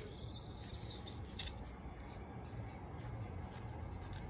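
Sidewalk chalk scratching and rubbing on concrete in a few short, quiet strokes.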